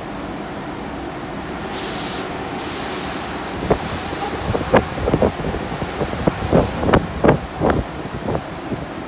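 R62A subway train standing at the platform with a steady rumble. About two seconds in there is a hiss of air, and from about halfway through a string of irregular clanks and knocks as the train starts to pull out.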